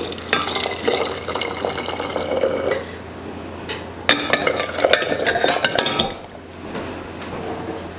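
Hot vinegar brine poured into a glass jar of hard-boiled eggs, in two spells about a second apart, with clinks of a utensil against the pot and the jar.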